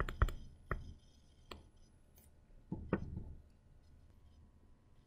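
Faint clicks and taps of a stylus on a writing tablet, then a short scratchy stroke about three seconds in as it writes.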